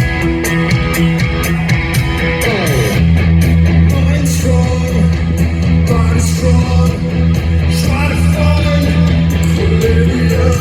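Rock band playing live: electric guitars, bass and drums with an even cymbal beat, with some singing. The bass line comes in heavier about three seconds in.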